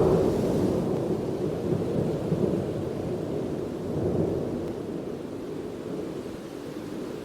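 Thunder rumbling and slowly dying away, with a brief swell about four seconds in.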